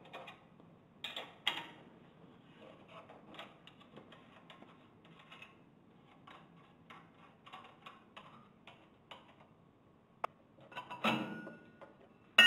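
Small irregular metallic clicks and rattles as the nuts holding the stainless steel front cover of a GEA Hilge CONTRA Bloc centrifugal pump are unscrewed with a spanner and by hand, with a louder metal clatter near the end as the cover plate is worked loose.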